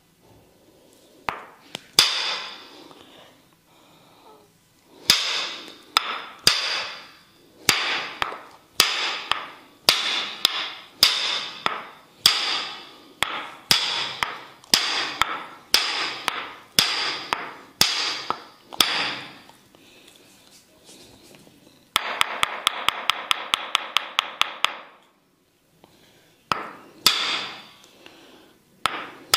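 Tok sen massage: a wooden mallet striking a wooden wedge held against the body, in sharp knocks about every half second, each with a short ring. After a brief pause comes a fast run of about twenty light taps, then a few more single strikes near the end.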